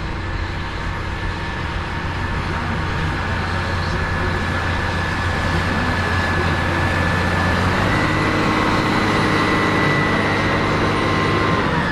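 Large farm tractor's diesel engine running steadily under load, with a whine on top. Its pitch steps up about 8 seconds in and drops away near the end.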